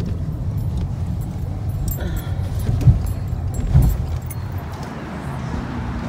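Low rumble of a moving car heard from inside the cabin, with scattered small clicks and two louder thumps near the middle; it fades into a lighter hiss near the end.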